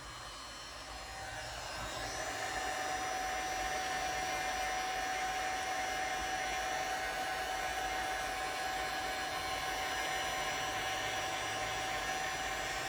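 Heat gun running, blowing hot air across freshly poured epoxy resin to blend the colours: a steady rushing blow with a thin whine, growing louder over the first two seconds and then holding steady.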